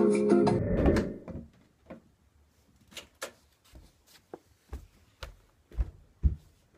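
Guitar music cuts off about half a second in, followed by scattered light knocks and a few low thuds: barefoot footsteps on a wooden floor.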